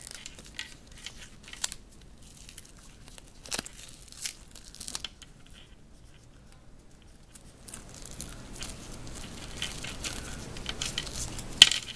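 Adhesive tape and a clear film dressing being peeled off the skin of the back of a hand to remove an IV cannula, with many short sharp clicks and a louder snap near the end.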